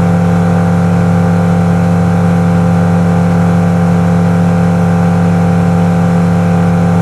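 Engine running at a steady speed: a loud, constant hum that does not change in pitch.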